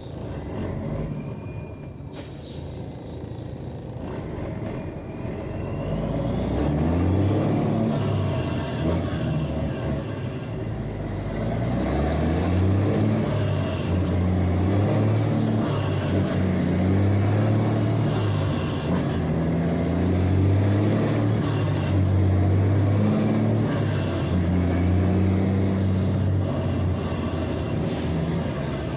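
Mercedes-Benz 1634's electronic OM 457 inline-six diesel, on a straight-pipe exhaust, pulling away and accelerating through the gears. The engine note rises and drops back again and again as gears are changed, and gets louder a few seconds in. A few brief sharp sounds break in between.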